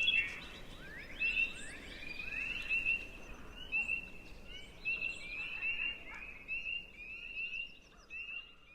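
Chorus of spring peepers: many short, rising peeps overlapping one another, fading near the end.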